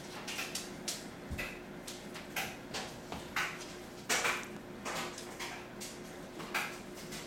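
Irregular short taps and scuffs on a hardwood floor as a ferret scampers about and a child shuffles on her knees after it, over a faint steady hum.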